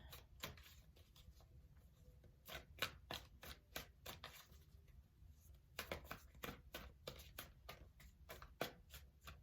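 Tarot cards being drawn from the deck and laid down on a table: a scatter of faint, sharp card clicks and taps in two bunches.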